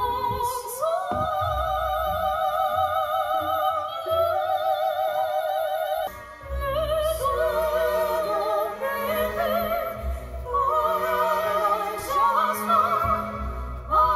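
Background music: operatic singing with a wide, even vibrato on long held notes, with a short break about six seconds in.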